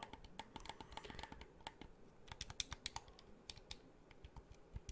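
Game controller buttons pressed repeatedly close to the microphone: a run of quick, soft, irregular clicks.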